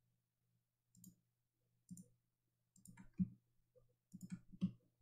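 Faint computer mouse clicks, irregular single clicks and quick clusters of two or three.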